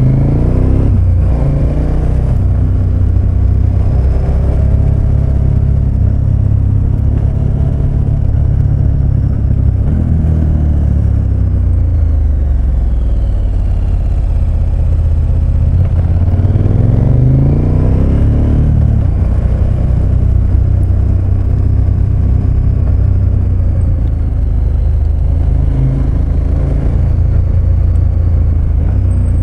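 KTM 1290 Super Adventure S's V-twin engine running through hairpin bends, its revs rising and falling, climbing sharply about ten seconds in and again around seventeen seconds. A steady low wind rumble on the helmet microphone runs under the engine.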